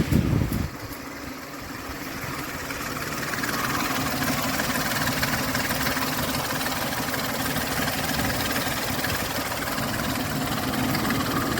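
Ford 4.0L SOHC V6 engine idling warm, with a strange timing noise from the front of the engine that sounds like a diesel running. The owner takes it for a timing-chain tensioner problem that a new tensioner has not cured, and suspects low oil pressure at the tensioner or a weak oil pump. A short loud burst comes in the first half-second.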